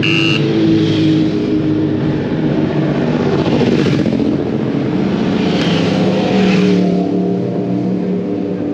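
Racing motorcycle engines running steadily as bikes ride down the pit lane at pit-lane speed. A pit-lane warning beeper, which sounds when a rider enters the pit lane, beeps briefly at the very start.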